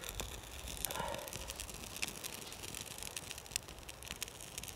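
Faint, sparse crackling and ticking of dry grass and birch-bark tinder catching fire from a lighter flame, with light rustling of the tinder bundle.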